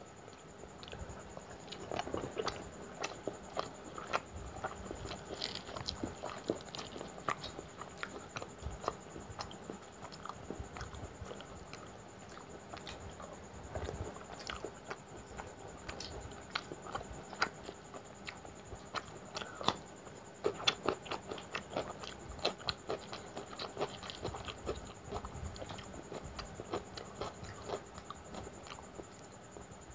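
Close-miked chewing and mouth sounds of a person eating luchi with mutton curry by hand: soft wet smacks and clicks at an irregular pace.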